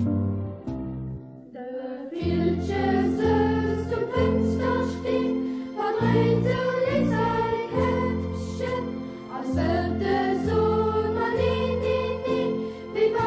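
A choir singing a Luxembourgish song with instrumental accompaniment; after a short instrumental bar and a brief dip, the voices come in about two seconds in.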